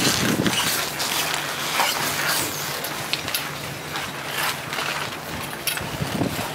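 Footsteps crunching through snow, an irregular run of crunches and clicks over a steady hiss.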